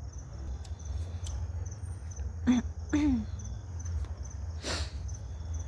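Crickets chirping in an even, pulsing trill over a steady low rumble. About halfway through, a young child makes two short vocal sounds that fall in pitch, and a short hiss follows near the end.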